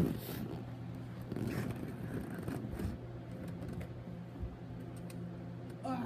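Electric fan running with a steady low hum, with faint scrapes and clicks over it.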